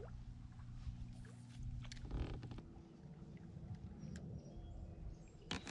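Quiet sounds of a fishing kayak on the water: faint lapping against the plastic hull, with scattered light clicks and knocks and a sharper click about five and a half seconds in.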